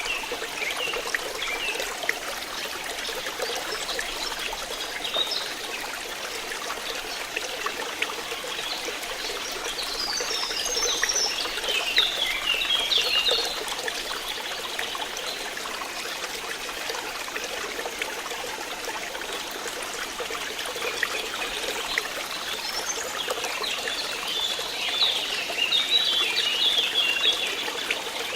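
Flowing water trickling steadily. Birds sing in short bursts of chirps, once around the middle and again near the end.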